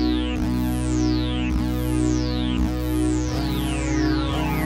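TAL NoiseMaker software synthesizer (pulse and sawtooth oscillators) playing a held tone that is retriggered about once a second. Each note opens with a falling zip in pitch from the attack-decay envelope routed to oscillator 2. The sweep and the low end of the tone change near the end as the envelope amount is turned.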